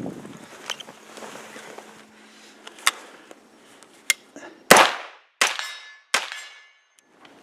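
Gunfire from a rifle: two sharp, fainter cracks, then three loud shots well under a second apart about halfway through, each trailing off in an echo, with a ringing tone after the last two.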